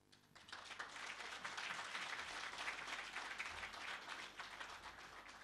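Audience applauding, swelling over the first second or so and tapering off toward the end.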